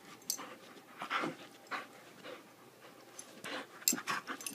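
A dog panting in short, irregular bursts, with a few sharp clicks near the end.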